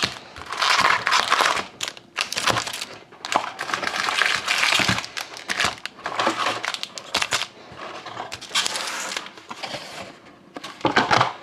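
Foil wrappers of hockey card packs crinkling in repeated irregular bursts as the packs are handled and opened.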